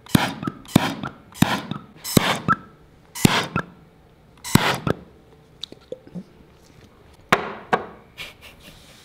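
A run of short, sharp knocks, about two a second, as a glass beaker holding a frozen ball of cookie dough is worked to get the dough out; they thin to faint clicks about five seconds in, and two loud knocks come a little after seven seconds, as the dough comes out onto a metal tray.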